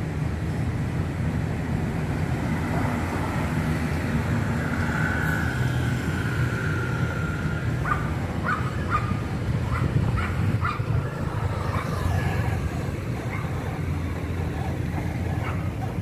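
Street traffic: a steady low rumble of passing scooters and cars. From about eight seconds in there is a quick run of short, higher-pitched sounds.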